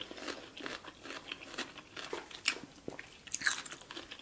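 Close-miked chewing of a mouthful of spicy Samyang Buldak ramen noodles: soft, irregular mouth clicks, the loudest about three and a half seconds in.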